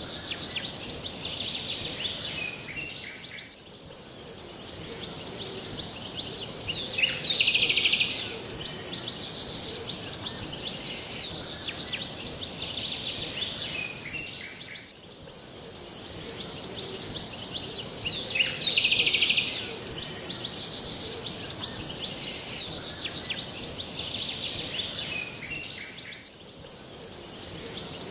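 Looped nature-ambience recording of birds chirping over a steady high hiss. The same stretch repeats about every eleven and a half seconds, with a denser, louder burst of chirping twice.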